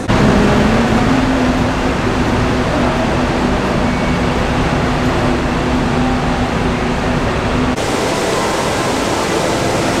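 Steady rumbling noise of an enclosed underground bus terminal, with a steady low hum from idling buses and ventilation. About eight seconds in it cuts to the even rush of water from a large indoor fountain.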